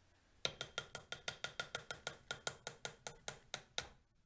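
A plastic measuring spoon tapped rapidly against the rim of a small glass jar to knock coconut oil off it: about six light clicks a second, each with a short glassy ring, stopping shortly before the end.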